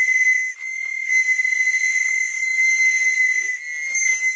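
A steady high-pitched whistling tone with fainter higher tones above it, over faint scattered sounds lower down.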